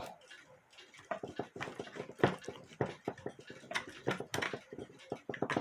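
Irregular light clicks and taps of small metal clock parts being handled as a cuckoo clock movement is worked apart.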